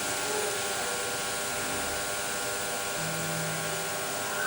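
Steady whirring noise with a constant hum, like a running fan or appliance in the room.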